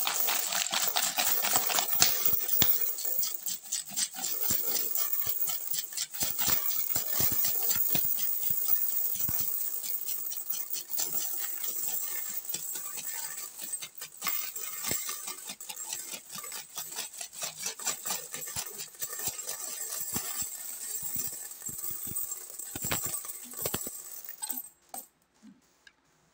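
Philippine peso coins poured and shaken out of a plastic bottle coin bank onto a heap of coins: a dense, continuous clinking and jingling of metal on metal, stopping near the end.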